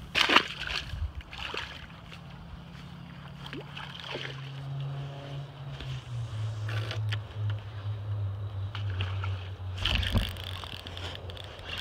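A splash just after the start as the released largemouth bass drops back into the pond, then a steady low hum that steps down in pitch twice, and a loud knock of handling noise near the end.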